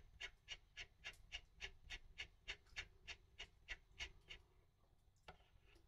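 Piaggio Ape 50 starter one-way clutch turned by hand in its free direction, giving a faint, steady clicking of about three to four clicks a second that stops about four seconds in, with one more click near the end. The freshly oiled clutch turns freely this way and locks the other way.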